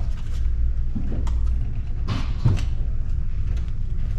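Steady low hum of the ferry, with a few short clicks and knocks, the sharpest about two and a half seconds in, as a key card and the handle are worked at a cabin door's electronic lock.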